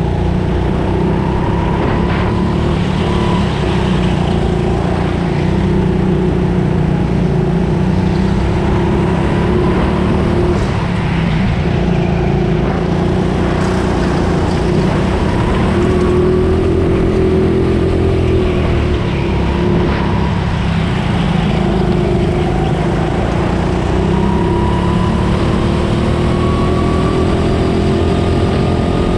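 Racing kart's motor heard onboard, running hard around the lap, its pitch rising and falling gently as the kart accelerates out of corners and lifts into them.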